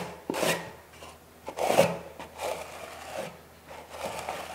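Steel trowels scraping across Kerdi waterproofing membrane in several strokes, pressing and combing the thinset mortar out from underneath it. The strongest stroke comes about two seconds in.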